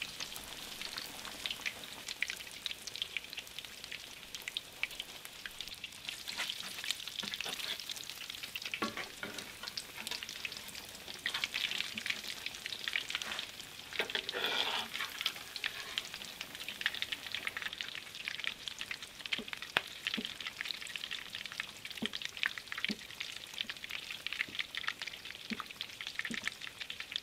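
Breaded potato cakes frying in hot oil in a cast-iron skillet: a steady, dense crackling sizzle with many small pops.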